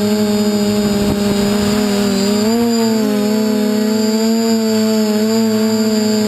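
DJI F450 quadcopter's motors and propellers whining steadily, the pitch wavering slightly with throttle and stepping up about two and a half seconds in.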